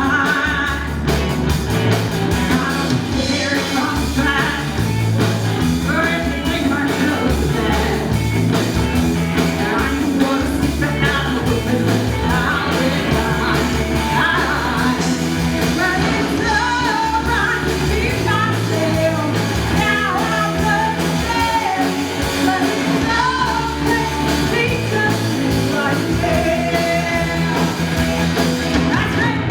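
A rock band playing live, with a singer over a steady bass line, drums and guitar.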